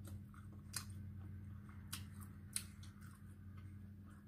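Eating sounds close to the microphone: a few sharp, wet mouth clicks and smacks while chewing, over a steady low hum.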